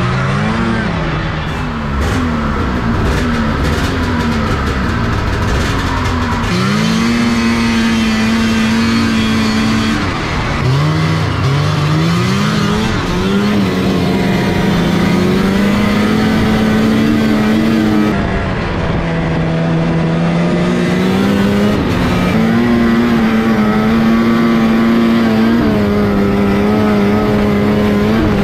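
Snowmobile engine running under way, heard from the rider's seat. Its pitch rises and falls over and over as the throttle is worked, settling into steadier stretches near the end.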